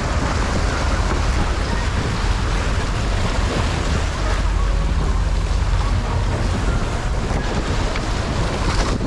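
Wind buffeting the microphone over the steady rumble and water wash of a boat at sea, a loud even noise with no break.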